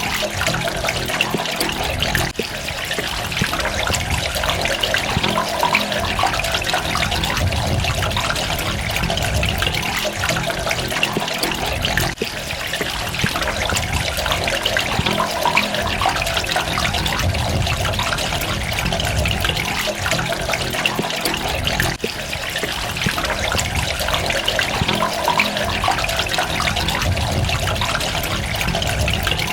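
Water running and splashing steadily with a dense patter of droplets, dipping briefly about every ten seconds.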